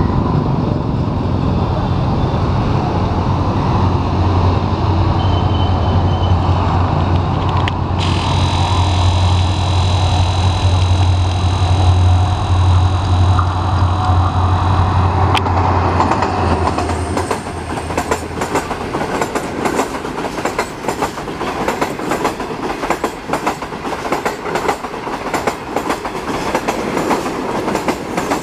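Pakistan Railways HGMU-30 diesel-electric locomotive running past with a steady low engine drone, a high whine sounding over it for several seconds in the middle. After about two-thirds of the time the drone fades and the passenger coaches roll by with rapid clickety-clack from the wheels.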